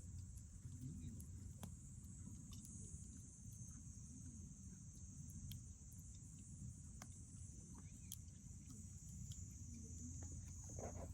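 Steady high-pitched chorus of crickets, with a low rumble beneath and scattered faint pops and crackles from a wood bonfire.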